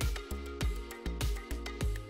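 Background music with a steady beat, a low bass pulse about twice a second under sustained held tones.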